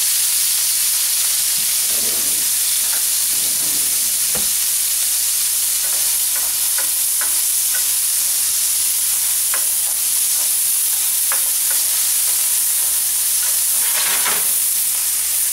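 Garlic and vegetables sizzling as they fry in the leftover chicken fat and juices in a pan, softening for a pan gravy. Scattered short clicks and a few scrapes as they are stirred.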